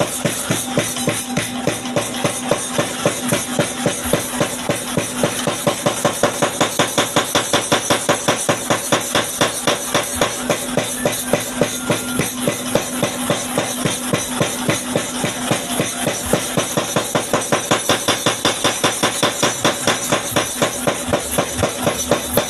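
Homemade power hammer pounding at a steady rate of about four blows a second, with a steady hum underneath.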